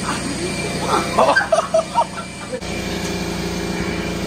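Young men yelling and laughing without words, in a burst from about one second in to halfway, over a steady background hum.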